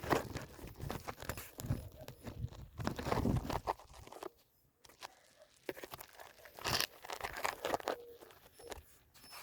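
Irregular crunching and rustling for about four seconds, then quieter with a few scattered crunches. A dove coos faintly near the end.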